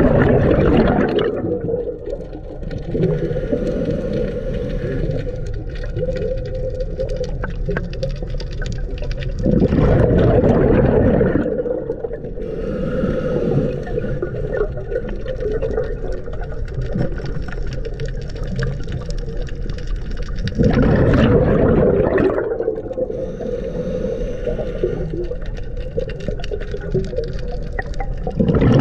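Scuba regulator breathing heard underwater: three loud bursts of exhaled bubbles about ten seconds apart, each lasting a couple of seconds, with quieter hissing inhalations between them over a steady underwater drone.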